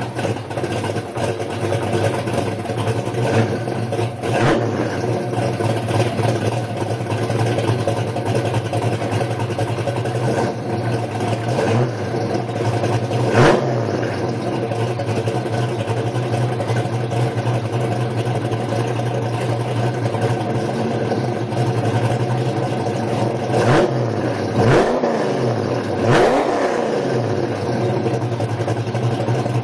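Fox-body Ford Mustang engine idling steadily, blipped a few times: a short rev about four seconds in, a sharper one about thirteen seconds in, and two more near the end whose pitch falls back down to idle.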